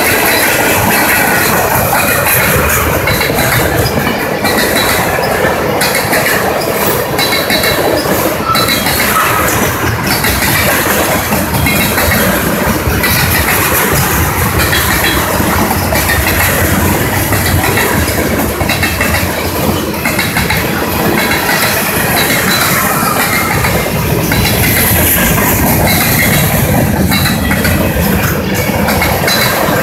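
Cars of a CSX mixed manifest freight train rolling steadily past close by, their steel wheels on the rails making a loud continuous rumble with irregular clanks.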